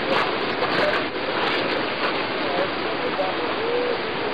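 Steady rush of running water, loud and unbroken, with faint voices under it.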